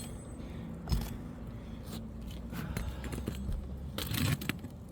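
Roofing hand tools working at a shingle nail: a sharp knock about a second in and a short metal scrape and rattle near the end, over a low steady hum.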